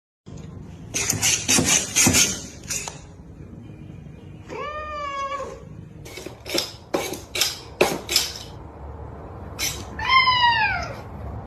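A domestic cat meows twice, about five seconds apart, the second meow falling in pitch. Between the meows come runs of sharp clattering knocks.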